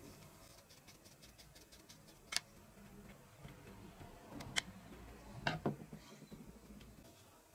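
Small metal clicks and ticks from a screwdriver turning the pivot screw of a bicycle bell's brass thumb lever mechanism: a run of faint quick ticks at first, then a few sharper single clicks, the strongest a little over two seconds in and a pair about two-thirds of the way through.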